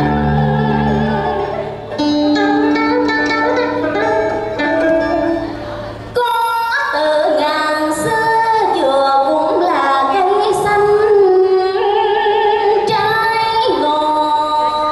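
Vietnamese ca cổ (vọng cổ) performance: a woman singing over instrumental accompaniment. The first few seconds are instrumental, and the voice comes in about six seconds in.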